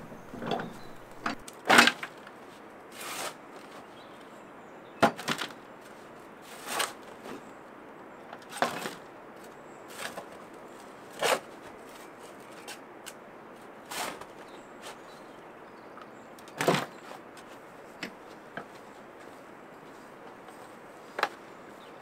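Shovel digging into stony soil and loading it into a wheelbarrow: a string of separate scrapes and knocks, one every second or two, a few of them sharp clicks.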